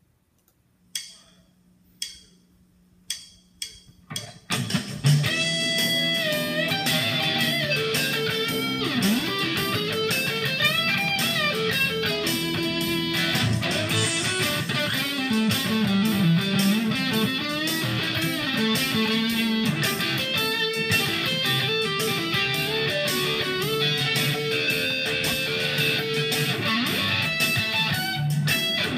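1968 Gibson Les Paul Standard Goldtop electric guitar with P-90 pickups being played: a few single notes struck and left to die away, then from about four seconds in continuous busy playing of riffs and chords.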